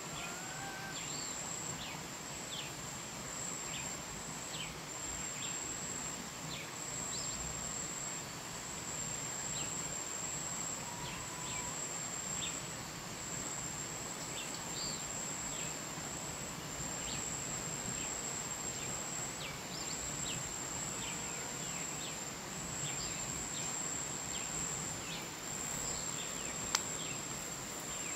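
Outdoor nature ambience: a steady high-pitched insect trill with many short chirps scattered throughout, and a single sharp click near the end.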